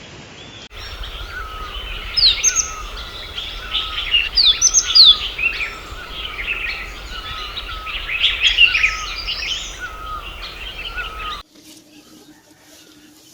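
A dense chorus of many birds calling over one another, with quick falling whistles and short repeated chirps over a low rumble. It starts about a second in and cuts off abruptly near the end, leaving a much quieter background with a faint steady hum.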